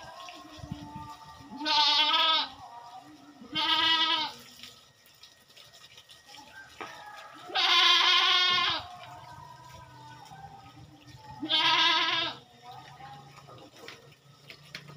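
Goat bleating four times, loud wavering calls about two seconds apart at first, the third one the longest at about a second.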